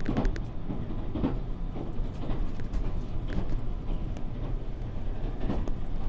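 JR Kyushu 787-series electric train running at speed, heard from inside its motored car: a steady low rumble of motors and running gear, with a short clack about once a second.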